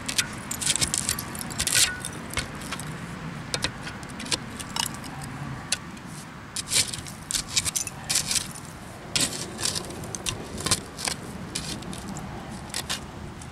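Irregular sharp clinks and scrapes of glass and metal: a digging tool working through privy fill packed with old glass bottles and shards.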